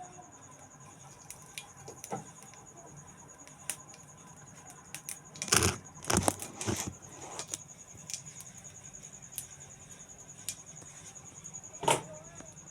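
A cricket's steady high trill, with a few sharp metallic clinks and knocks, the loudest cluster about six seconds in and another near the end.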